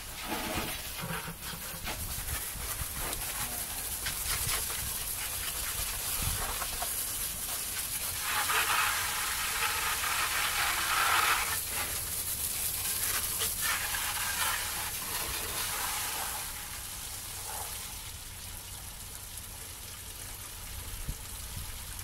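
Water spraying from a garden hose, a steady hiss that grows louder from about 8 to 12 seconds in.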